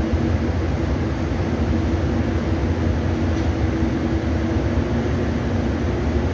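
A boat's engines droning steadily, heard on board: a constant low rumble with a steady hum over it.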